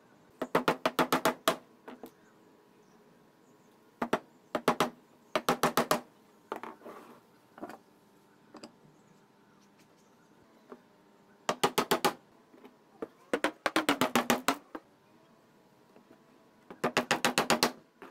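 Hammer driving nails into wood in quick bursts of rapid strikes, about eight to ten a second, each burst lasting around a second, six or seven bursts in all.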